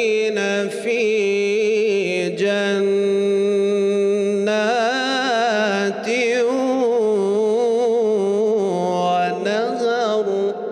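A man reciting the Quran in the melodic tajwid style, holding long notes with vibrato and ornamented turns, with only short breaths between phrases.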